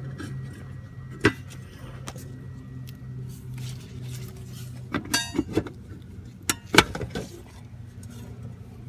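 Scattered metallic clicks and clinks from handling metal electrical parts: one about a second in, a cluster around five seconds in and two sharp ones just after, over a steady low hum.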